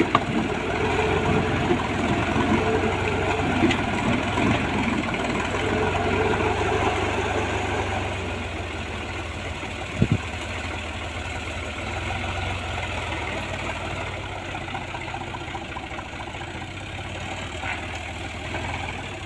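Kubota M5000 tractor's diesel engine running steadily while driving a PTO post-hole auger boring into soil. It is louder and rougher for the first eight seconds or so, then eases as the auger comes up out of the hole. A single sharp knock comes about ten seconds in.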